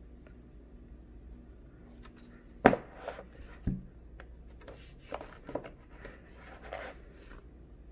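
Photobook pages being handled and turned: a sharp tap about two and a half seconds in, a duller knock a second later, then several short paper rustles and flicks as a page is turned over.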